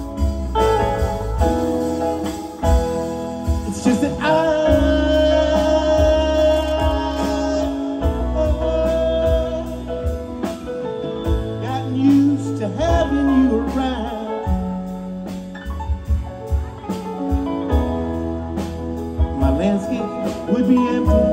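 Live band playing an instrumental passage: electric guitars, steel guitar, keyboards, bass and drums, with gliding lead-guitar notes over a steady beat.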